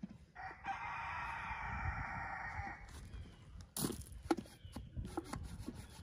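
A rooster crowing once, a long crow of about two and a half seconds. A few sharp knocks and clicks follow in the second half.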